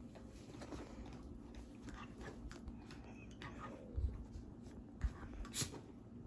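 Dog chewing on a chew bone: soft scattered clicks, with a few dull thumps about four and five seconds in.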